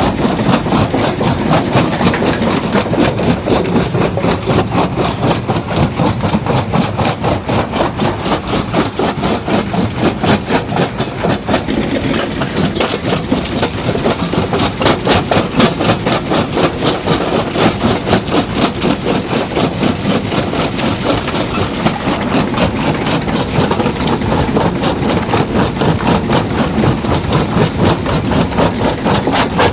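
Stone crusher machine running and crushing rock: loud, steady mechanical noise with a rapid, even beat throughout.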